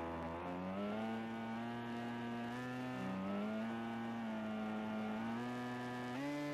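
Flying-wing UAV's propeller motor running in flight, heard from the onboard camera: a steady hum whose pitch rises about a second in, dips around the middle and steps up sharply near the end.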